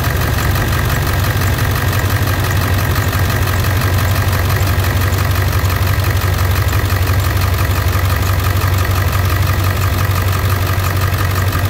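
International T444E V8 turbodiesel idling steadily after a warm-up, with a low drone and a steady higher whine above it. The oil filler cap is being unscrewed for a blow-by check.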